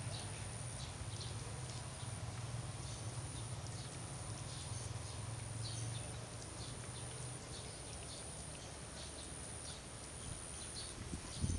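Outdoor rural ambience: short, repeated bird chirps over a steady high-pitched whine, with a low hum that fades out about two-thirds of the way through and a single thump near the end.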